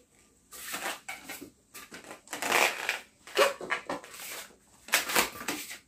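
A latex modelling balloon rubbing and squeaking against the fingers in several short spells as its neck is knotted off after inflation.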